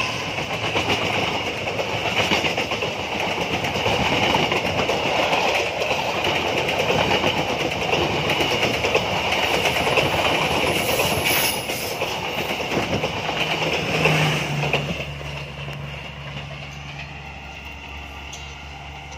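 Passenger coaches of a Vietnamese express train rolling past close by, their wheels running on the rails in a dense, steady noise. About 15 seconds in, the end of the train goes by and the sound fades as it moves away.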